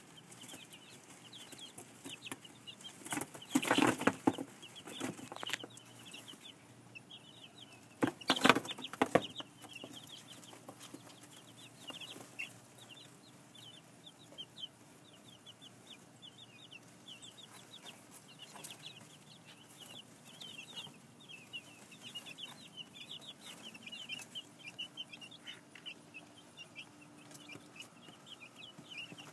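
Two-week-old chicks peeping continually, a steady stream of short, high peeps. Two louder bursts of noise break in, about three seconds in and again about eight seconds in.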